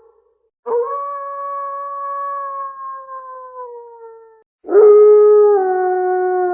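Wolf howling: two long howls. The first rises sharply about half a second in, holds steady and slides down as it fades; the second, lower and louder, begins right after and is still going at the end.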